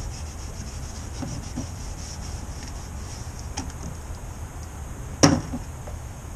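Steel wool scrubbing over a snowmobile's body in short, repeated strokes, roughing it up before painting. One sharp knock about five seconds in.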